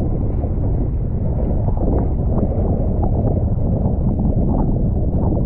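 Wind buffeting a wing foiler's camera microphone: a loud, steady low rumble, with water splashing under the board.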